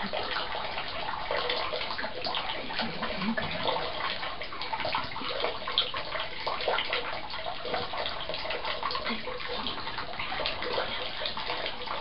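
An African grey parrot splashing in shallow bathwater in a tub, flapping and shaking its wings, making a steady run of small splashes.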